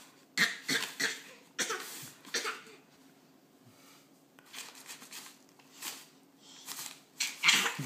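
A baby's short, breathy vocal huffs, several in quick succession at the start, then a quiet stretch and one more near the end.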